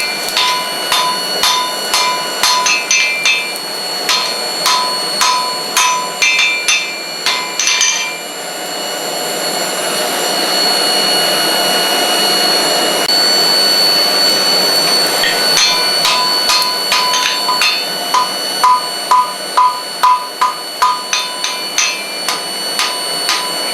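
Hand hammer striking hot wrought iron on an anvil, about two or three blows a second with a bright metallic ring, forge-welding the scarfed joint of an old chain link into a mooring ring. The hammering stops for several seconds about a third of the way in, leaving a steady rushing noise, then starts again.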